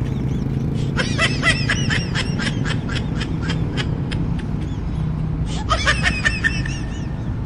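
A high-pitched laughter sound effect, quick repeated 'ha' sounds in two runs, the second short, over the steady low rumble of a motorcycle ride.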